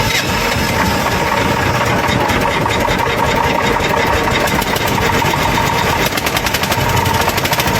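Freshly rebuilt 15-year-old diesel engine (2007, about 28 hp) running steadily after its overhaul, with an even, crisp firing beat.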